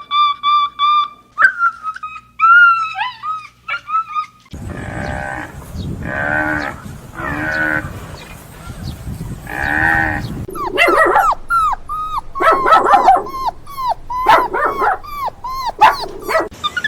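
A series of animal calls: a few high whistled chirps, then four long calls each about a second long, then a quick run of short yelping calls.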